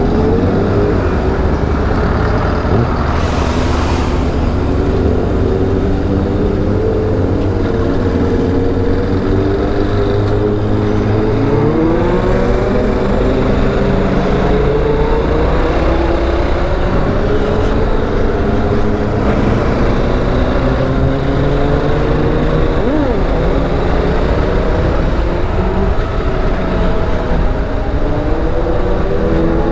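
Motorcycle engine running as it rides slowly through town, its pitch rising and falling repeatedly with the throttle and gear changes.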